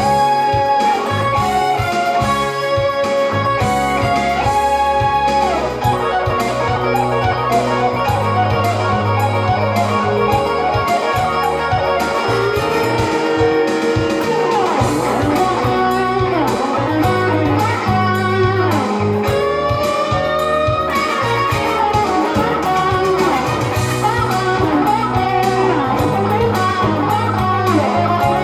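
Electric guitar solo, a melodic line with bent notes and fast runs in the middle, over steady low bass notes that change every couple of seconds.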